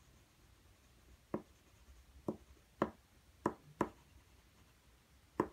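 Graphite stick striking and stroking drawing paper: six short, sharp taps at irregular intervals as dark marks are put down.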